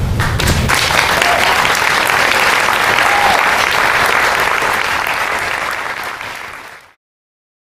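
Applause from a recital audience and the accompanying musicians: dense, steady clapping that fades away near the end.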